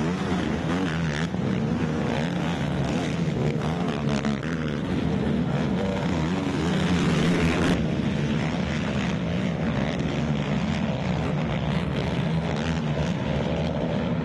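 Racing ATV engines at high throttle, revving up and down continuously, with more than one quad heard at once.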